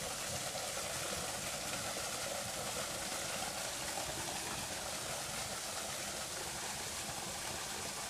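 Small waterfall: a thin stream of water falling from a stone ledge and splashing steadily into a rock pool.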